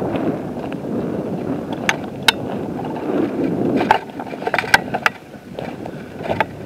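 Wind and rubbing noise on a body-worn camera's microphone as the wearer walks through brush, with several sharp clicks and snaps, clustered about two seconds in and again between four and five seconds in.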